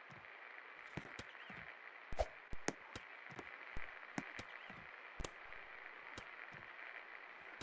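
56-inch Best Electric Works Classic II ceiling fan running, a faint steady whir, with irregular clicks and taps over it.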